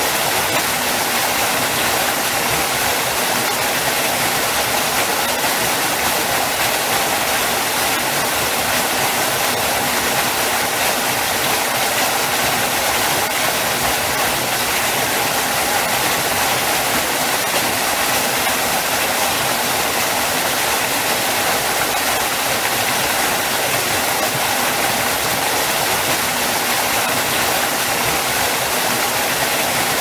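Kegon Falls, a tall plunge waterfall, with its water falling and crashing into the basin below in a steady, unbroken rush.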